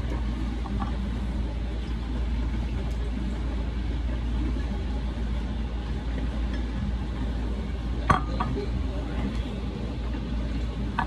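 Steady low hum of a running dishwasher. About eight seconds in there is a sharp clink of kitchenware, with a fainter one just after.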